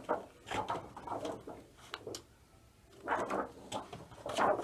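Stiff paper flashcards being handled and shuffled: a run of irregular rustles and sharp little taps and slides of card.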